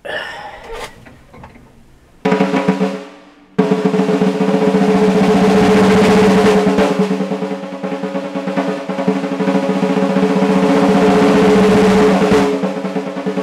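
Drum kit played in a solo. After faint knocks at the start, a short loud drum roll begins about two seconds in and breaks off; from about three and a half seconds a fast, dense, unbroken roll runs on, the drums ringing under the strokes.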